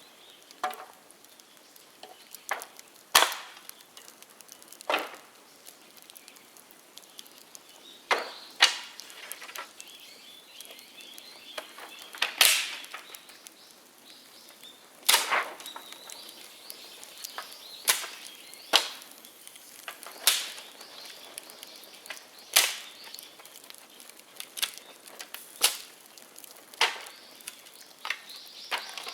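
Dead bamboo burning in a bonfire, popping and cracking sharply at uneven intervals, about twenty cracks, a few of them loud.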